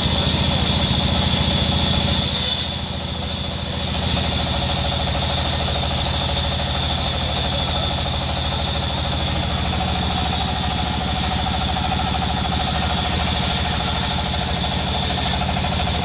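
Large vertical band saw running and ripping a mahogany plank lengthwise, over the steady drone of the belt-driven drive below the table. The sound dips briefly about three seconds in.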